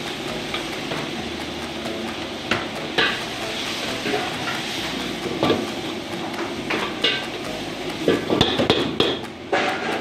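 Metal ladle stirring and scraping in a wok, with sharp clanks of the ladle against the pan every second or two and a cluster of quick clanks near the end, over a steady frying sizzle.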